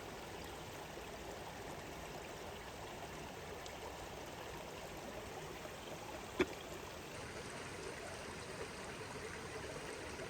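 Steady rushing of flowing water, with a single sharp click about six seconds in.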